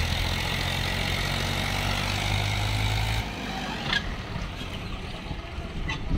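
Tractor diesel engine running steadily under load as it hauls a loaded trolley up a sandy slope. The engine sound drops off abruptly about three seconds in, leaving a quieter background broken by two short clicks.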